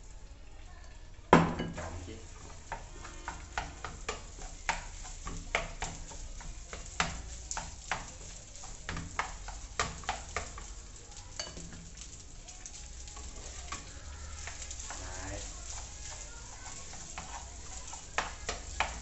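Rice sizzling in a hot oiled frying pan, with a sharp knock about a second in, then a spoon repeatedly scraping and knocking against the pan as the rice is stirred and broken up.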